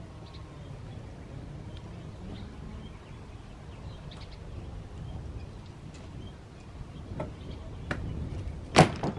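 Wood fire crackling with a few scattered pops over a low rumble, then near the end one loud slap as a large perforated panel is dropped onto the burning pile.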